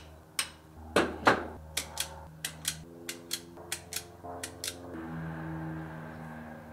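A run of sharp metallic clicks and snaps from hand crimping of wire terminals for an ignition switch, about three a second, stopping about five seconds in.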